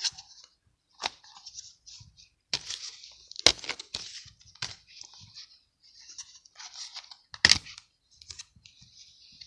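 Anime DVD set packaging being handled: intermittent rustling with sharp clicks and snaps, the loudest about three and a half and seven and a half seconds in.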